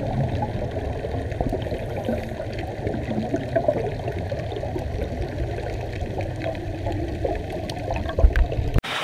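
Steady rushing, sloshing water, cut off abruptly near the end.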